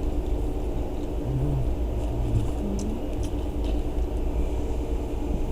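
Steady low rumble, with faint murmured voices and a few soft clicks.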